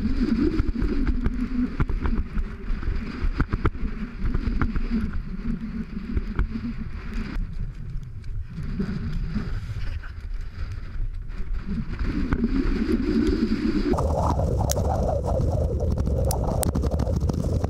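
Wind rumbling and buffeting on the microphone of an action camera carried by a runner, with scattered knocks and scrapes from the camera being jostled. About fourteen seconds in it changes to a louder, steadier wind rush.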